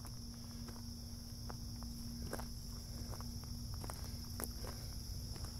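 Crickets chirring in a steady high drone, with soft footsteps and a few faint ticks as the walker moves along.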